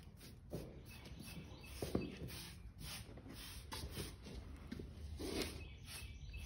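Rapid rubbing and scraping strokes of a grooming tool on a shedding horse's coat, with a few soft knocks.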